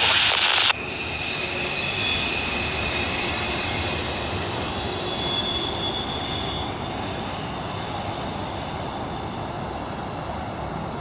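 Steel wheels of a receding freight train squealing against the rails, several high steady squeal tones over a low rumble that slowly fade as the train moves away. A loud hiss cuts off suddenly less than a second in.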